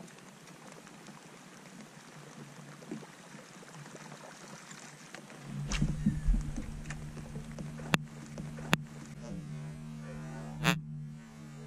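Light rain pattering, then about halfway through a small boat motor starts up and runs with a low steady hum. A few sharp clicks come over it.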